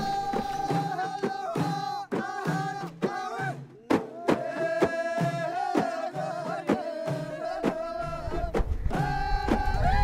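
Music with a held melody line over a regular beat.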